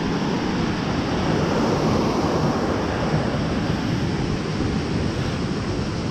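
Steady rushing of a mountain river running through a boulder gorge, an even noise with no breaks, with some low wind buffeting on the microphone.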